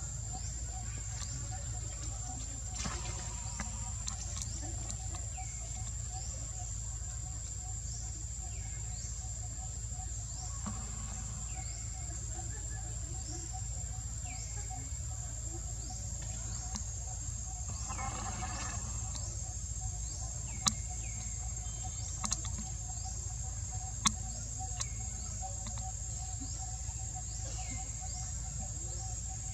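Outdoor ambience of a steady high-pitched insect drone, with short falling bird chirps repeating every second or two. Three sharp clicks come about two-thirds of the way through.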